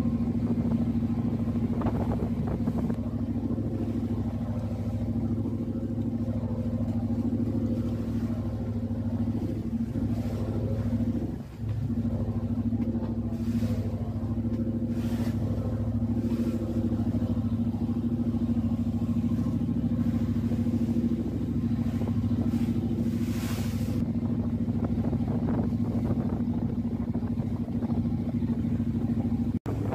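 A vehicle engine running steadily, a constant low drone that holds one pitch throughout and dips briefly about eleven seconds in.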